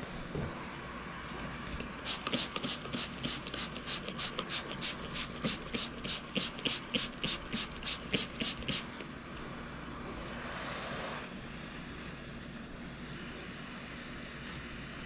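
Hand trigger sprayer misting stain remover onto carpet: a quick even run of short spritzes, about three a second, for some seven seconds. A steady drone runs underneath, and a short hiss follows about ten seconds in.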